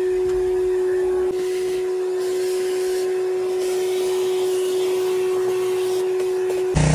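Shop vacuum running with a steady whine while its hose sucks dust from a tractor cab's floor and controls; the rush of suction rises and falls as the nozzle moves. Just before the end the sound cuts abruptly to a louder pressure washer.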